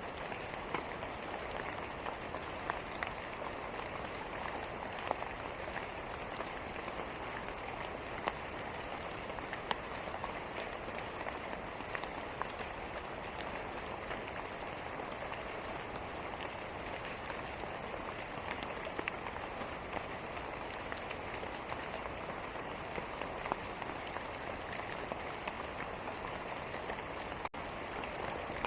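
Steady rain falling, an even hiss with scattered sharper drop ticks. The sound cuts out for an instant near the end.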